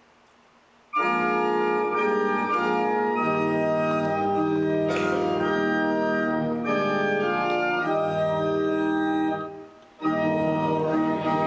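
Organ music in slow, held chords, starting suddenly about a second in. It fades briefly shortly before the end, and music starts again right after.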